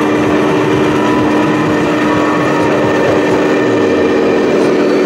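Radio-controlled Volvo tipper truck driving under a heavy load, with a child riding on its bed: a steady engine-like drone that holds one pitch, over the general noise of a busy hall.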